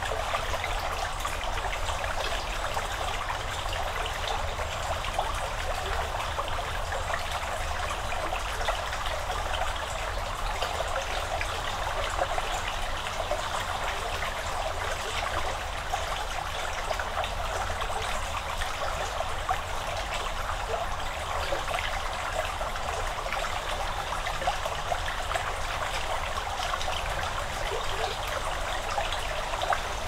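Shallow chalk stream flowing, a steady trickling and babbling made of many small splashes.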